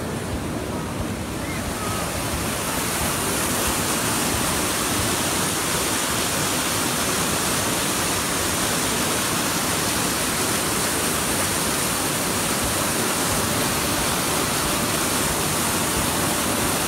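White water rushing down a rocky mountain creek in a steady rush of noise, growing a little louder about two seconds in.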